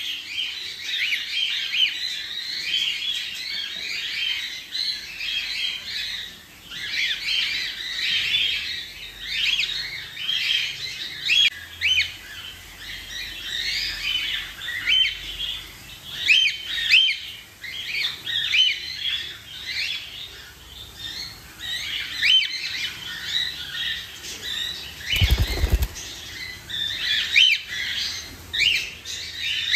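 Baby cockatiels chirping in a rapid, unbroken stream of short repeated calls. Near the end there is a brief low rumble.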